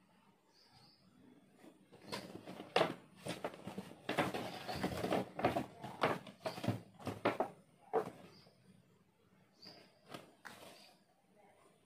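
Rustling and knocking of objects being handled and sorted, busiest from about two to eight seconds in, with a few faint high bird chirps near the start and end.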